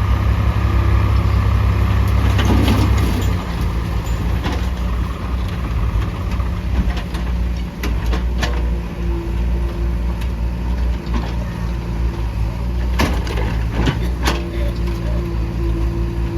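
Mahindra backhoe loader's diesel engine running, louder for about the first three seconds and then settling lower. Several sharp knocks come through in the second half.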